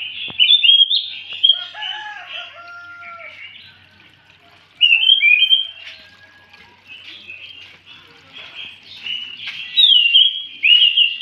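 Caged anis macan thrush singing loudly and without a break, a fast run of varied chirps, warbles and whistles, swelling louder about a second in, around five seconds in and again near the end.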